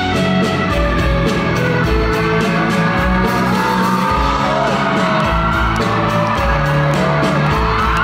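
Live band music heard from the audience of a theatre: a steady drum beat under bass and keyboards, with a few fans whooping over it.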